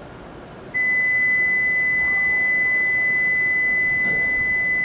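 A steady, high-pitched electronic warning tone starts about a second in and holds unbroken for about four seconds. It is the door-closing warning for the shinkansen.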